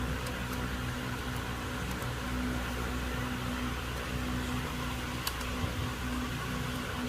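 Steady mechanical hum with background hiss, with a couple of faint clicks about five seconds in.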